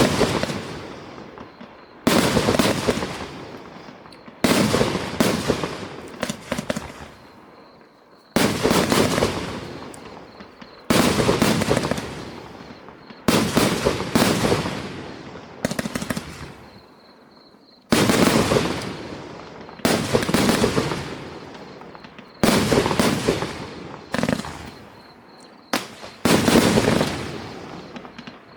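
Fireworks display cake firing its shots one after another, about a dozen in all, every two to three seconds. Each is a sudden bang followed by a fading crackle and hiss.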